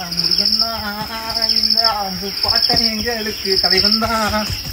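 Insects chirping in a high, pulsing trill that swells about once a second, with a lower pitched, wavering tone underneath.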